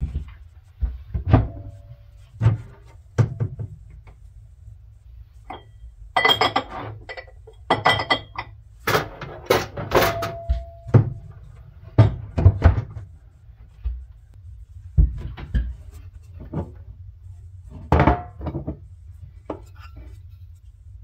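Cookware and utensils being handled: an irregular series of knocks and clinks, a few ringing briefly like metal pots or lids, over a low steady rumble.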